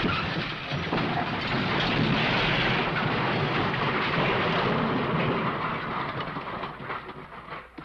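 A crash sound effect: a loud, dense rumbling crash that holds steady for about seven seconds, then dies away near the end with a few scattered clatters.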